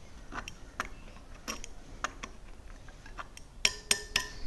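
Metal tool tapping the spokes of a Sur Ron electric dirt bike wheel to check their tension by tune: a string of short, dull clicks from loose spokes, then near the end three louder taps that ring with a clear pitch, the sign of a tighter spoke.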